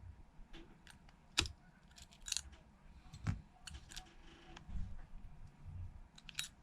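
Scattered small clicks and taps of precision tools and phone parts being handled during an iPhone repair, with a sharper click about a second and a half in and another a little after three seconds.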